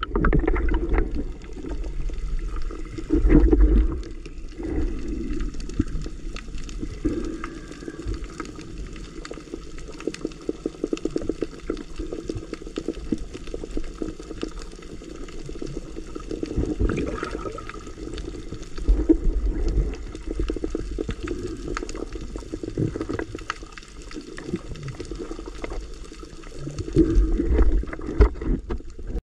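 Water heard underwater through a camera housing: a muffled wash of water with a steady crackle of small clicks. Stronger low surges of water noise come a few seconds in, about two-thirds through, and near the end.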